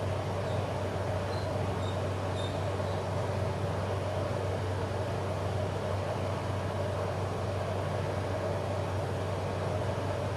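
Steady low machine hum with a hiss, unchanging throughout.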